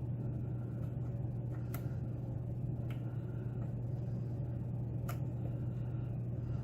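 Single-pin picking of a pin-tumbler lock: a few faint, sharp ticks of the pick against the pins, over a steady low hum.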